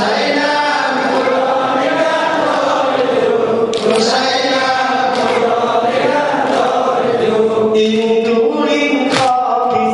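Mourners chanting a Shia noha (mourning lament) together, long held lines that rise and fall slowly. Two sharp smacks cut through the chant, about four and nine seconds in.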